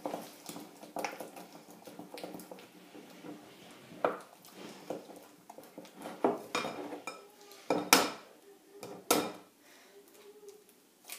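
Wooden spatula knocking and scraping against a glass bowl as thick choux pastry dough is beaten to work an egg in. The knocks come irregularly, the loudest about eight and nine seconds in.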